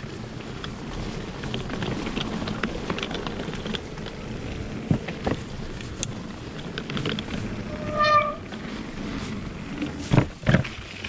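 Mountain bike being ridden over a rough trail: steady tyre and trail noise with frequent small clicks and knocks from the bike. There is a short high squeak about eight seconds in and two louder knocks near the end.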